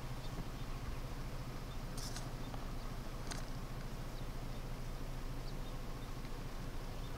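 Steady low background hum, with two short, sharp clicks a little over a second apart near the middle.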